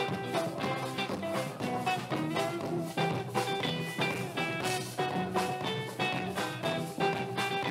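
Carimbó music playing with a steady dance beat: an instrumental passage between sung verses.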